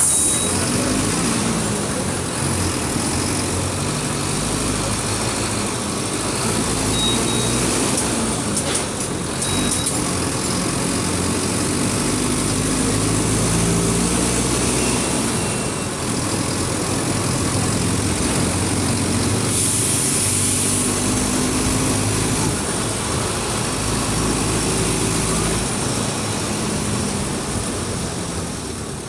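Mercedes-Benz OF 1722M bus's diesel engine running under way, its pitch climbing and dropping in steps as the revs rise and fall between gear changes. A hiss of released air comes in briefly about two-thirds of the way through.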